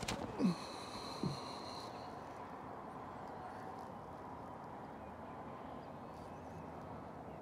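Faint, steady outdoor background noise, with a sharp click at the very start and two short creaks within the first second and a half, while a compound bow is held at full draw; no shot is released.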